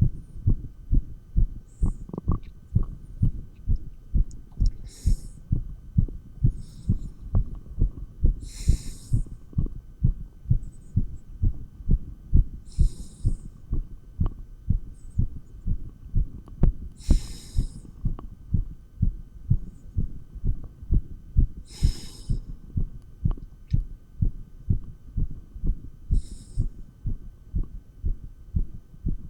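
Human heartbeat heard through a stethoscope, beating fast and regularly under exercise. A short hiss comes about every four seconds, and a faint steady hum sits underneath.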